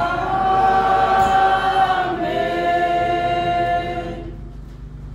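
Church congregation singing a sung 'Amen' a cappella in long held chords, changing about two seconds in and dying away about four seconds in.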